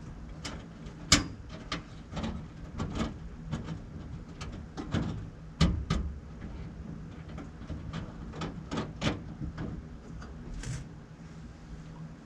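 Irregular sharp clicks and knocks from the rear of a car as it rolls over bumps, over a steady low engine and road hum. The source is unknown: nothing loose has been found, and the owner suspects something in the coilovers.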